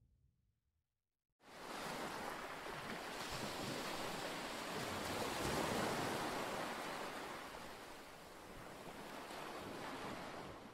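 Ocean surf on a beach: a steady rush of breaking waves that comes in suddenly about a second and a half in, swells, eases off and fades out at the end.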